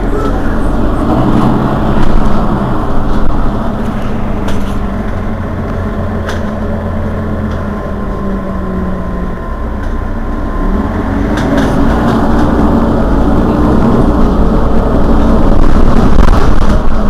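Diesel engine of a Mercedes-Benz Citaro Facelift city bus idling while the bus stands still, a steady hum whose pitch drops and then shifts back up about halfway through. A few short clicks sound over it, and it grows louder near the end.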